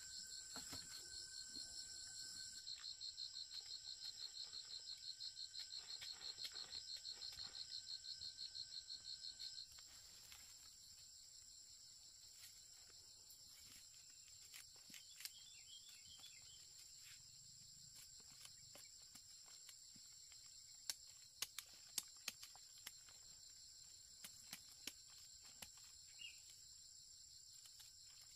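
Faint chorus of calling insects, a steady high-pitched drone with one fast pulsing trill that stops abruptly about ten seconds in. Later, a few sharp faint clicks.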